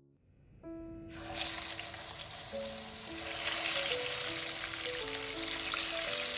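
Chicken pieces frying in hot oil in a pan: a steady, dense sizzle that starts about a second in. A simple melody of background music plays alongside.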